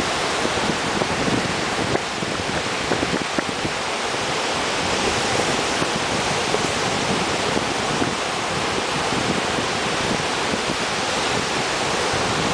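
Ocean surf breaking and washing up on a beach: a steady rushing noise of waves.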